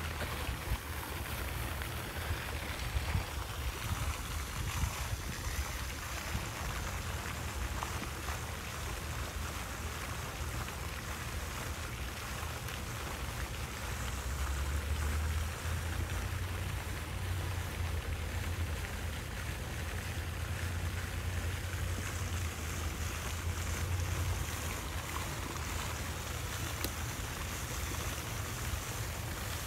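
Wind buffeting the microphone, a steady low rumble that swells and eases, over an even outdoor hiss.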